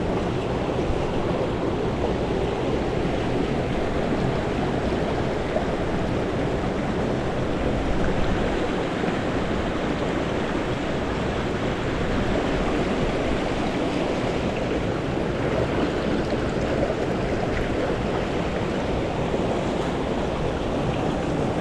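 Mountain stream water rushing, a steady, unbroken flow.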